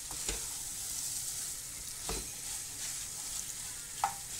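Beef sizzling in a frying pan over low heat while a spatula stirs and turns it. The spatula knocks and scrapes against the pan a few times: shortly after the start, about two seconds in and near the end.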